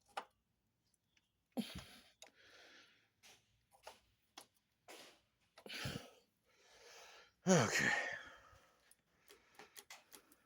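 A man sighing and breathing out heavily several times, saying a low 'okay' near the end, followed by a run of light clicks.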